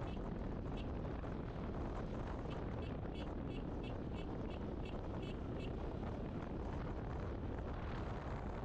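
Motorcycle riding at steady speed, its engine running low under heavy wind rush on the microphone. A run of short high chirps, about three a second, comes through for a few seconds midway.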